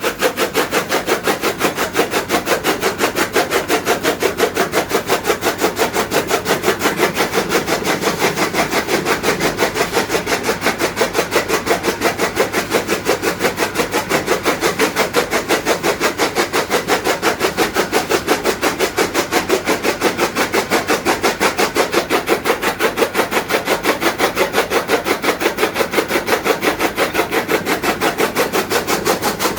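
Motor-driven chaff cutter (toka machine) running, its blades chopping fodder in a fast, even rhythm; the blades are freshly sharpened.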